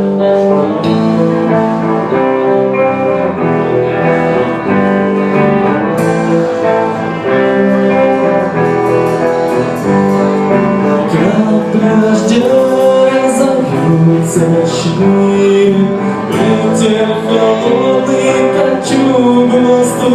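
Live rock band playing the instrumental introduction of a song, with guitars to the fore; the sound fills out about six seconds in, with sharp cymbal-like strikes later on.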